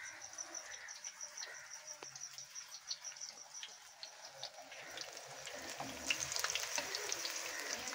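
Pakora batter fritters sizzling and crackling as they deep-fry in hot ghee, the sizzle growing louder about six seconds in.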